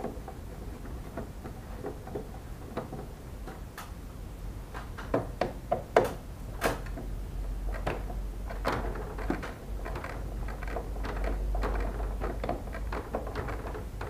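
A run of sharp clicks and knocks, the loudest about six seconds in, over a low hum that grows louder after about seven seconds.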